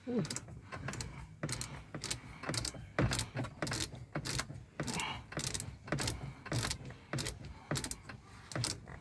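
The numbered combination rings of a clutch lock being turned by hand to scramble the code, giving a quick, irregular run of clicks, several a second.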